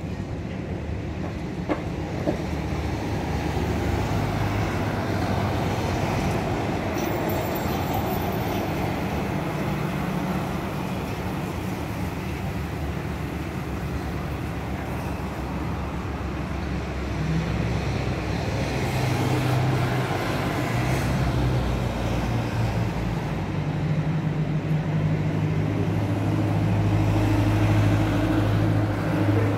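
Road traffic passing along a street: vehicle engines and tyre noise, with a low engine drone from a heavier vehicle growing louder in the second half.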